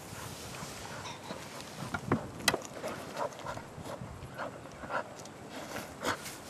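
English springer spaniel running over loose tilled soil and grass, its paws making soft, uneven footfalls, with a sharper knock about two and a half seconds in.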